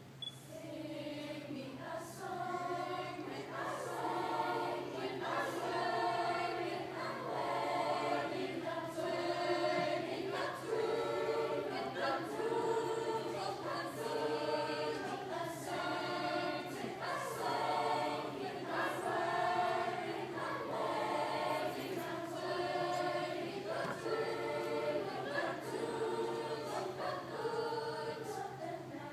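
Large school choir singing unaccompanied, in sung phrases of about a second each, with a steady low hum underneath.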